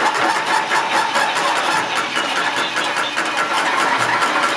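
Two remote-controlled toy robot spiders walking across a table, their small battery motors and gears whirring steadily with a fast ticking patter.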